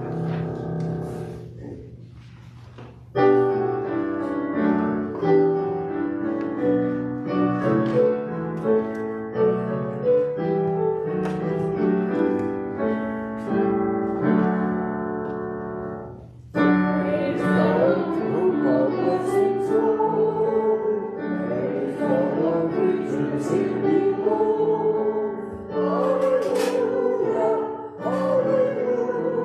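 Church music on a keyboard instrument, playing a slow hymn-like passage in chords. About sixteen seconds in, singing voices join with the accompaniment.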